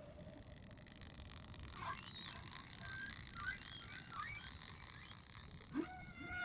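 Whale-song sound effect: scattered short, wavering squeaks over a steady high tone, with a rising call starting near the end.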